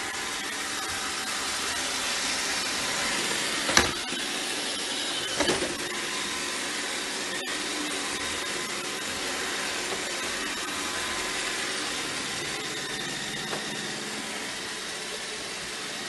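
iRobot Roomba 605 robot vacuum running steadily, its motor and brushes giving an even whir as it drives over a power cable on a hard floor. A sharp knock about four seconds in and a short double knock about a second and a half later.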